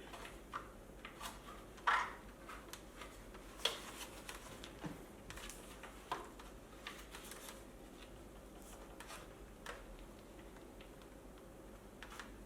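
Scattered light clicks and knocks of parts and tools being handled, with the sharpest knock about two seconds in and another just before four seconds.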